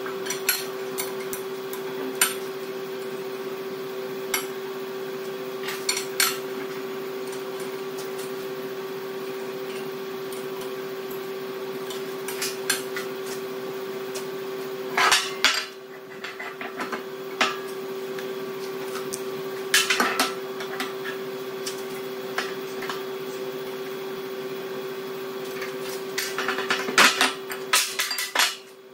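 Steel line boring bar and its fittings clinking and knocking against each other and the link as the bar is slid through the bore and set up. Sharp metal clinks come every few seconds, clustering near the middle and near the end, over a steady background hum.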